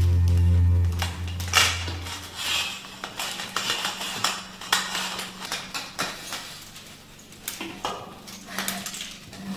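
Metal curtain eyelets clinking and scraping in irregular clicks as they are pushed along a metal curtain rod. Background music fades out in the first two seconds.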